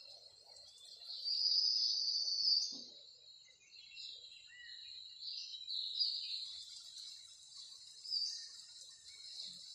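Birds chirping, a continuous run of high chirps that is loudest between about one and three seconds in.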